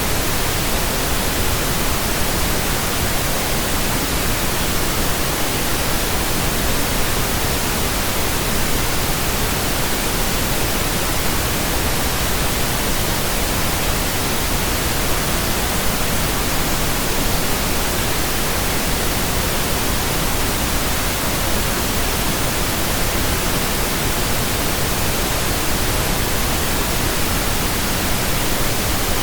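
Steady generated pink noise: an even, unchanging hiss.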